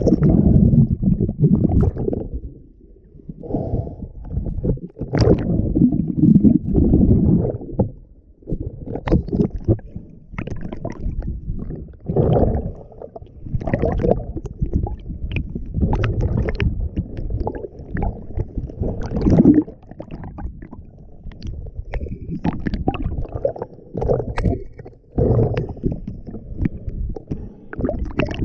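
Muffled underwater noise picked up by a submerged camera: irregular low rumbling and sloshing of water moving around the housing as the diver swims, with occasional faint clicks.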